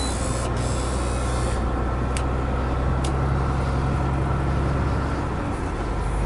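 A truck's diesel engine idling steadily, with a hiss for about the first second and a half and a few short clicks.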